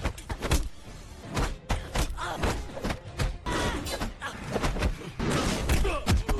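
Film fist-fight sound effects: a rapid run of punches, kicks and body thuds, several hits a second.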